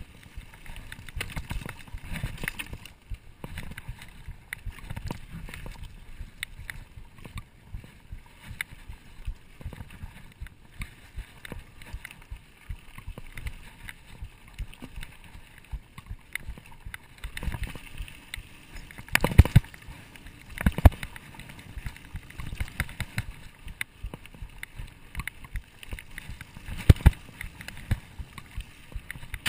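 Mountain bike riding over a rough dirt singletrack: a steady rattle of tyres and bike with many sharp knocks from bumps. The loudest knocks come about two-thirds of the way through and again near the end.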